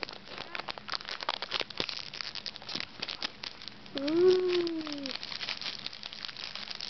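Foil snack bag crinkling steadily as hands handle and open it. About four seconds in, a young child's voice makes one drawn-out sound, rising then falling in pitch, the loudest thing heard.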